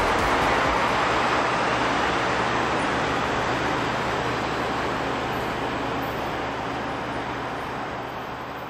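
Steady rushing noise of a Budd-built rapid transit train, gradually fading away.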